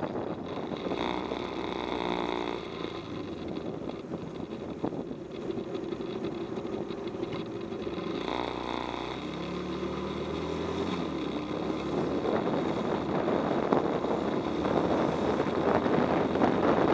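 Bajaj Pulsar motorcycle's single-cylinder engine running under way in traffic, its pitch dropping and then climbing again with the throttle a little before halfway. Wind rushes over the microphone and grows louder toward the end as the bike picks up speed.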